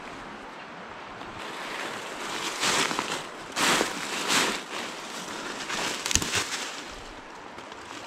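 River water rushing steadily, with a few louder rustling swishes close by in the middle and a couple of sharp clicks about six seconds in.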